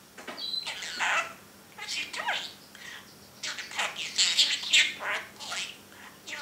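Pet budgerigar chattering in its cage: a run of quick high-pitched chirps and warbling calls, thickest and loudest in the second half.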